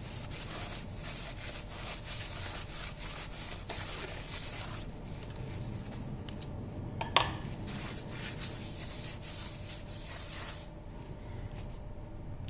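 Paper towel rubbing over the metal braking surfaces of a Massey Ferguson 165 brake actuator in repeated wiping strokes, drying off brake cleaner. A single sharp metallic clink about seven seconds in.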